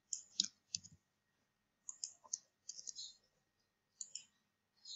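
Faint computer keyboard keystrokes and mouse clicks: a dozen or so short, separate clicks, some in quick little clusters, from typing into a web form and clicking its button.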